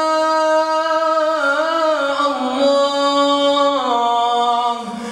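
A man's voice chanting Quranic recitation in a melodic tajweed style, drawing the words out over long held notes that step up and down in pitch, with a brief dip near the end.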